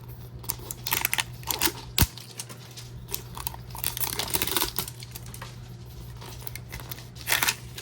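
Plastic wrap on a Mini Brands toy capsule ball being crinkled and peeled by hand, with scattered clicks and taps of hard plastic. There are a few separate bursts, the sharpest click about two seconds in.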